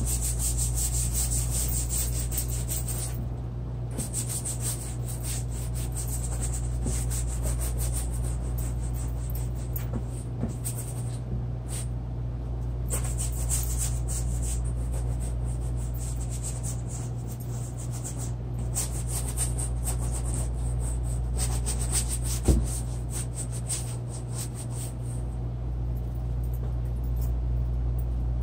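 Repeated irregular rubbing, scratching strokes of an artist's drawing or painting tool working across the surface of a study, over a steady low hum. A single sharp knock sounds about two-thirds of the way through.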